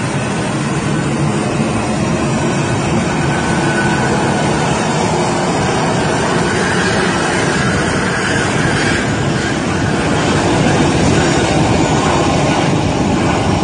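Aircraft engine noise: a steady, dense rushing drone that grows a little louder near the end.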